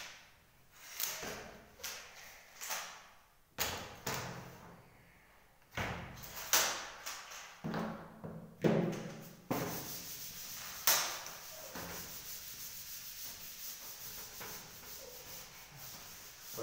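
A reversible whiteboard–chalkboard being lifted and turned over on its wall mounting, with a series of knocks and scraping strokes. From about nine or ten seconds in, a steady rubbing as a duster wipes chalk off the chalkboard.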